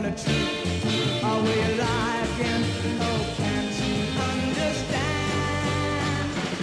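Rock music: a full band with a melody line that wavers and slides over it.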